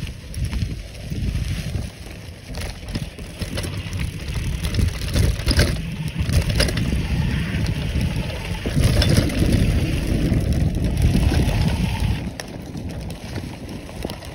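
Bicycle rolling fast along a leaf-covered sandy trail: a steady low rumble of wind buffeting the microphone and tyres crunching over dry leaves and bumps, with a couple of sharp knocks about halfway through.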